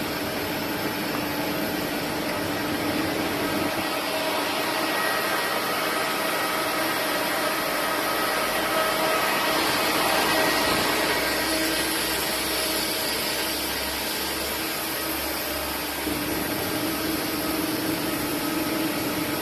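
Steady industrial machinery noise: a constant hum with a steady whine and hiss, swelling somewhat about halfway through, with a deeper rumble joining for several seconds after.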